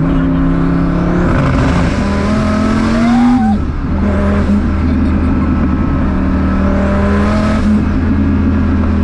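Calvo-built 1500-horsepower Dodge Viper V10 accelerating hard, heard from inside the cabin. The engine climbs in pitch through each gear, with two upshifts, about a third of the way in and near the end, where the pitch drops sharply before rising again.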